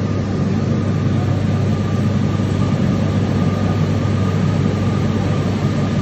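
Cider-works machinery running, with a stainless-steel roller unit processing crushed apple pulp. It gives a steady low hum with a faint high whine above it.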